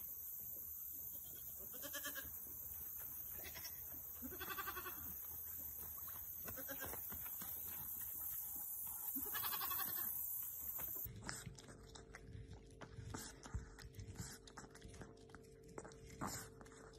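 A goat kid bleating, several short separate bleats spread over about ten seconds. Then, after a cut, faint clicking as a small dog chews.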